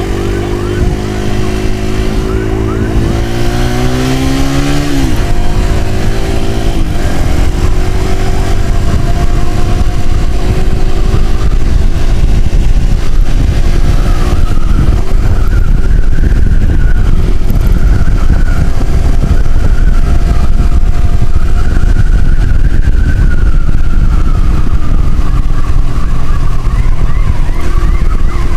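Motorcycle engine accelerating with a rising pitch, dropping sharply at a gear change about five seconds in, then running steadily at speed under heavy wind noise on the microphone.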